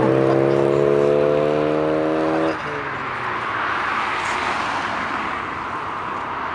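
A car engine held at high revs, a steady, slowly rising note that cuts off sharply about two and a half seconds in, followed by a steady rushing noise.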